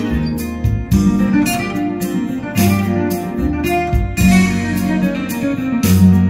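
Guitar-led music with a strong bass line, played back through a home-built Amp Camp Amp class A amplifier and a bookshelf speaker.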